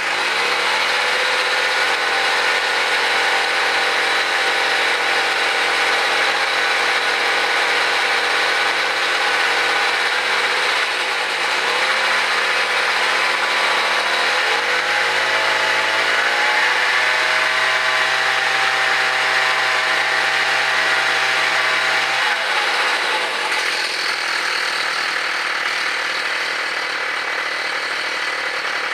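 Small single-cylinder-class gasoline engine of a gas-powered mobility scooter running continuously, turning its chain drive with no wheels fitted. Its speed picks up just at the start, dips about eleven seconds in, climbs again in two steps around twelve to sixteen seconds, and drops back about twenty-two seconds in; the owner says the motor runs good.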